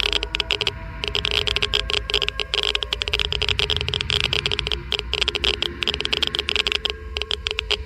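Geiger–Müller counter clicking rapidly and irregularly, a dense crackle of counts with a few brief lulls: each click is an ionizing particle detected, at a high count rate.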